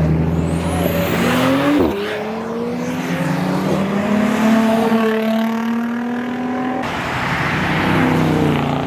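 Car engines revving hard and accelerating away. The engine pitch climbs, drops sharply as it shifts just before two seconds in, then climbs again. Near seven seconds in, another engine note takes over.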